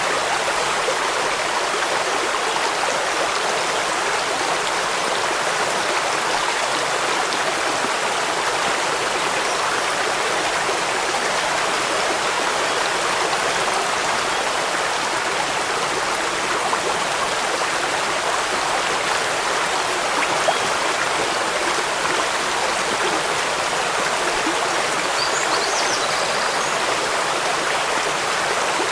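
Stream running over rocks: a steady, unbroken rush and babble of water.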